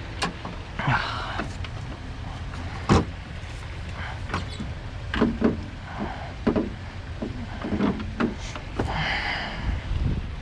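Hand tools working a radiator hose clamp: scattered metal clicks and knocks, the loudest about three seconds in, with scraping noises about one second in and near the end.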